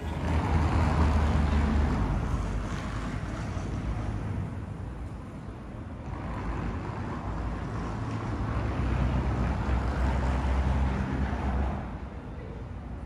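Outdoor city street ambience: a rumbling, hissing wash of noise with a heavy low rumble that swells twice, once at the start and again for several seconds in the middle.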